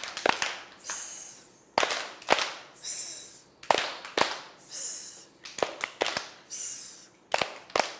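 Hand claps in pairs, each pair followed by a short high hiss, like a firework going up, repeating about every two seconds: a clapping game imitating fireworks.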